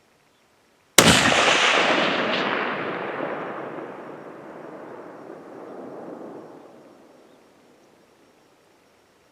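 A single rifle shot about a second in, sudden and loud, its report echoing and rolling away over several seconds.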